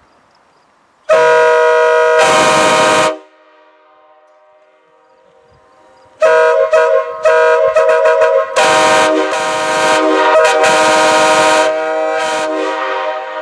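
Train air horn sounding a chord of several steady notes: one blast of about two seconds a second in, then from about six seconds a run of short toots going into long held blasts that fade near the end.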